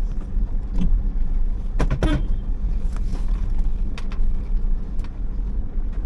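Car driving slowly over a rough, unpaved gravel and mud road, heard from inside the cabin. There is a steady low rumble of engine and tyres, with a few sharp knocks and rattles, the loudest cluster about two seconds in.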